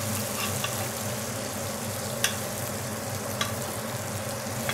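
Marinated lamb chump searing in butter and oil in a hot frying pan, sizzling steadily, with a metal ladle clinking against the pan a few times as the chimichurri marinade is spooned over the meat. A steady low hum runs underneath.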